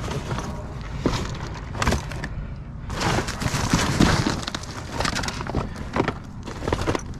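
Clatter of loose scrap and debris being handled: scattered knocks and clicks, with a denser spell of scraping and crunching about three seconds in.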